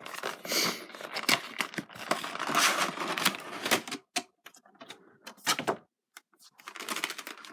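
Cardboard figure box being handled and opened: dense rustling and scraping with many sharp clicks for the first few seconds, then scattered clicks, a short pause, and more rustling near the end.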